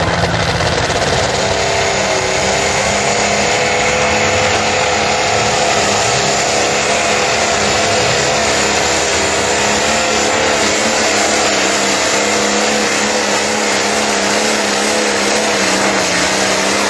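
Pulling tractor's engine running hard and loud under load as it drags a weight-transfer sled down the track, its pitch wavering slightly as the load changes.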